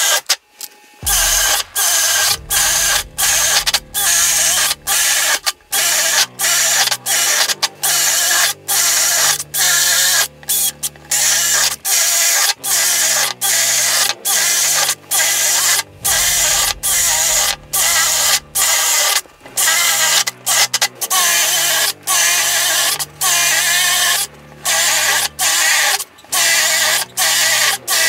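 Bosch GSB 185-LI 18 V cordless drill boring a 5/8-inch spade bit through wood, hole after hole, in short runs about one a second that break off sharply between them. Low music notes run underneath.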